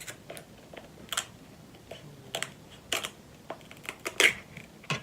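King crab leg shells being cracked and snapped apart by hand: a run of sharp, irregular clicks and cracks, the loudest a little over four seconds in.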